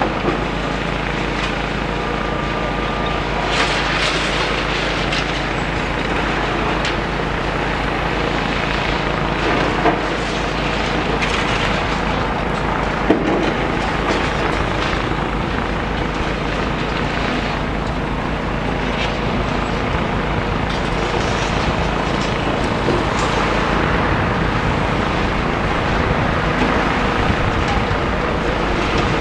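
A demolition excavator's engine running steadily, with a few short knocks and clatters of rubble being moved.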